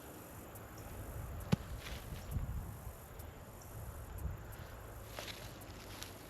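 Crickets chirping in a high, steady chorus, with low rustling of movement underneath and one sharp click about a second and a half in.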